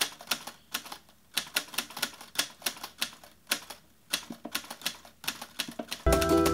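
Typewriter keystrokes, a typing sound effect: sharp key strikes in quick, irregular runs with short pauses between them. Near the end, music with bell-like tones starts.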